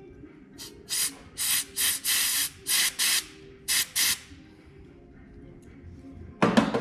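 Compressed air hissing in about eight short, sharp blasts, fed into a brake caliper to force a stuck brake piston out of its bore; the piston stays wedged. A short clatter comes near the end.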